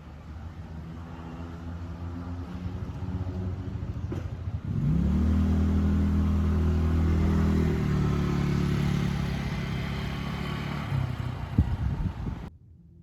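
Traffic noise: a motor vehicle's engine approaches and passes close by, loudest for about three seconds from about five seconds in, then easing. A short sharp click comes near the end, and the sound cuts off abruptly.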